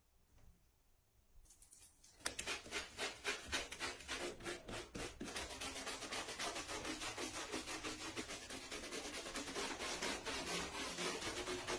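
A handheld bath brush scrubbing shampoo lather into a wet Labrador's coat: quick, rhythmic rubbing strokes, several a second, starting about two seconds in after a quiet moment.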